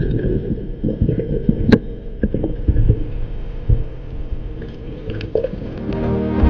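Muffled underwater noise picked up by a camera in a waterproof housing: an uneven low rumbling and crackling, with a few sharp clicks, the loudest just under two seconds in.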